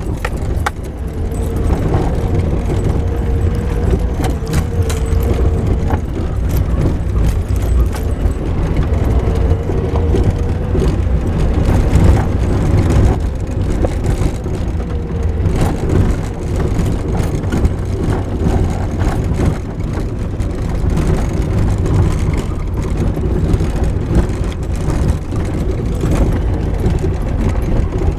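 A four-wheel-drive Jeep driving slowly over a rough gravel trail, heard from inside the cab: a steady engine and tyre rumble with frequent rattles and knocks from the bumpy track.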